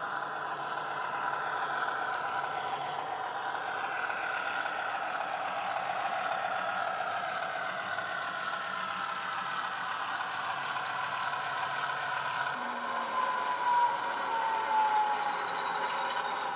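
A model Class 50 diesel locomotive's sound decoder plays its English Electric 16-cylinder engine through an upgraded speaker. The engine runs steadily with a whine that slowly falls in pitch. A brief, louder, high squeal comes about 13 seconds in.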